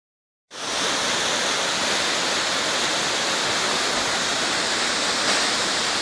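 Large waterfall cascading over rock: a steady, even rush of falling water, starting about half a second in.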